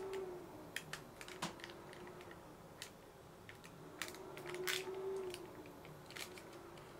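Silicone spatula spreading and scraping chocolate sponge batter across a parchment-lined baking tray, with scattered light clicks and taps against the tray and paper. A faint tone rises and falls twice in the background.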